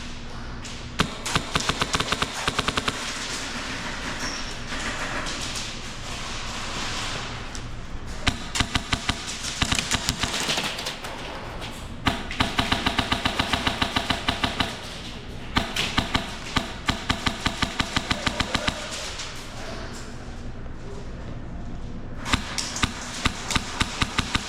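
HPA airsoft rifle with a Polarstar Jack engine firing on full auto: five strings of rapid, sharp shots, each a second or three long, with short pauses between them.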